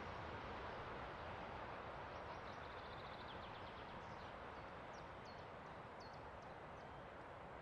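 The rumble of a long train slowly fading as it moves away, with birds chirping over it: a quick run of chirps a few seconds in, then several short high chirps.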